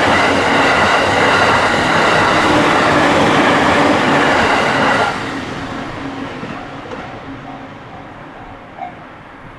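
JR Takasaki Line train passing over a level crossing: loud, steady running noise that drops sharply about five seconds in as the last car clears, then fades away as the train recedes.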